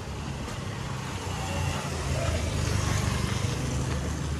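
A motor vehicle's engine passing close by on the street: a low hum that grows louder around the middle and then eases off slightly, over general street noise.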